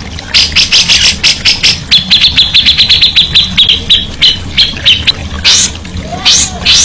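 A songbird singing in trains of short, harsh, rapid notes. About two seconds in, the notes speed up into a fast run on a slightly falling pitch, then slow again.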